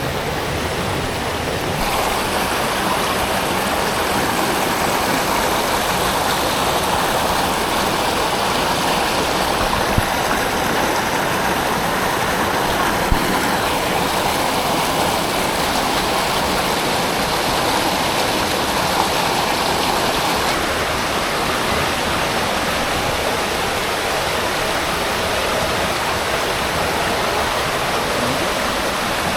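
Steady rushing of a mountain creek cascading over small waterfalls, with two faint brief knocks about 10 and 13 seconds in.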